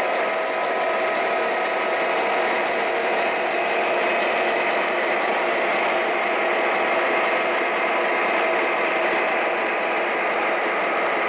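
Four MTH Premier O gauge diesel locomotives running together as one lash-up, their onboard diesel engine sound effects and motors making a steady, loud drone with a few constant tones over a hiss of running noise.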